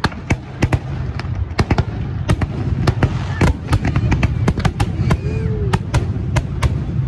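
Fireworks display: a dense, irregular run of sharp bangs and crackles from bursting aerial shells, several a second, over a continuous low rumble.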